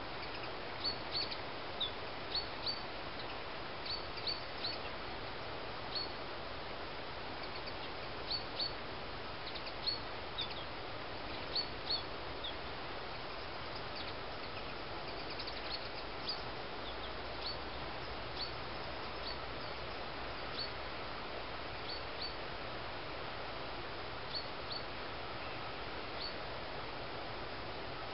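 A small songbird giving short, high call notes, single or in quick pairs every second or so, thinning out about halfway through, over a steady outdoor hiss.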